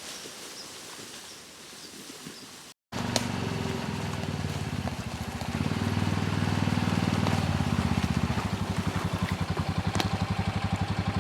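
Faint outdoor ambience, then after a cut about three seconds in a Honda Pioneer side-by-side UTV's engine running, getting louder about three seconds later and settling into an even, pulsing idle.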